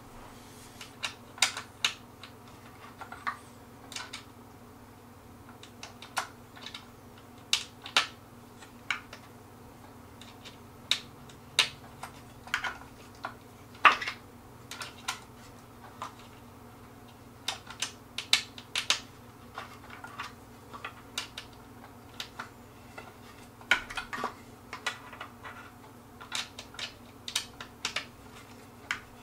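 Irregular sharp clicks and light taps in small clusters, from metal bolts and the small supplied assembly tool being worked into a wooden table's legs and frame by hand.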